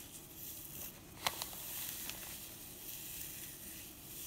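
Dried herb leaves being crumbled and sifted by hand inside a zip-top plastic bag: a faint, crackly rustle with a few sharp ticks, the loudest about a second in.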